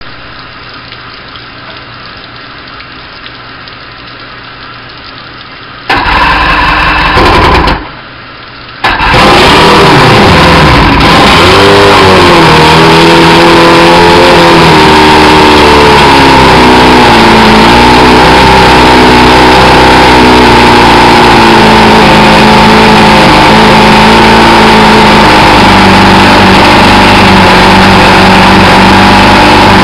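Johnson 140 hp V4 two-stroke outboard cold-started on a hose. It turns over for under two seconds about six seconds in and stops, then on the second try, about nine seconds in, it catches, revs up and down briefly and settles into a steady fast idle.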